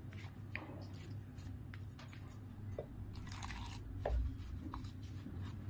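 A hand kneading rice flour and hot water into dough in a steel plate, with faint soft crunching and squishing of the flour and a few light clicks against the plate. A steady low hum runs underneath.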